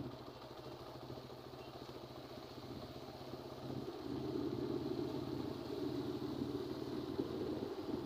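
Motorcycle engine running steadily while riding, with road and wind noise growing louder about halfway through.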